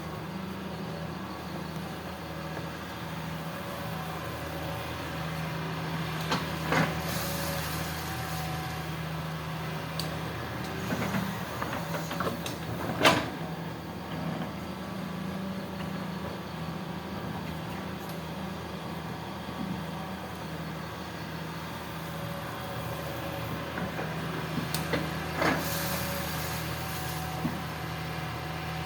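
Hitachi hydraulic excavator's diesel engine running steadily while it works, with several sharp knocks, the loudest about halfway through. Short hisses come near the start and again near the end.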